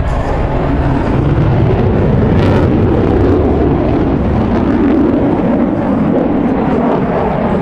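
Eurofighter Typhoon's two EJ200 turbofan engines heard as loud, steady jet noise, heaviest in the low end.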